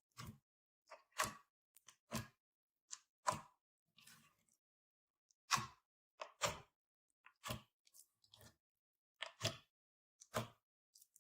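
Slime being squeezed and pressed by hand, making a string of short wet squishes and pops about once a second, some in quick pairs.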